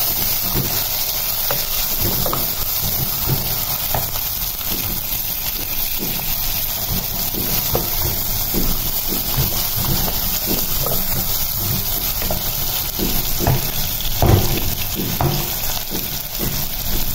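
Sliced onions sizzling in hot mustard oil in a metal pan, steadily hissing, while a wooden spatula stirs them with repeated short scrapes and knocks against the pan.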